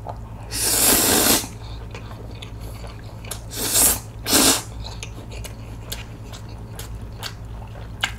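A person slurping cold spicy mixed noodles (bibim-myeon) into the mouth: one long slurp about half a second in, then two shorter slurps around four seconds in. Between and after the slurps come chewing with small wet clicks and smacks.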